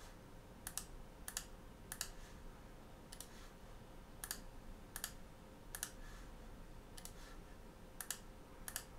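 Faint clicks of a computer keyboard and mouse as values are entered: about ten separate short clicks at irregular intervals, several heard as a quick double tick.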